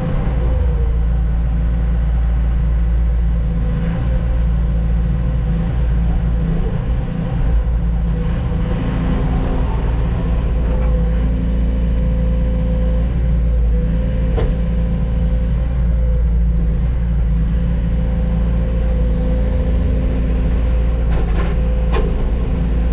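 Heavy diesel log-truck engine running steadily at an even pitch, with a few sharp clicks late on.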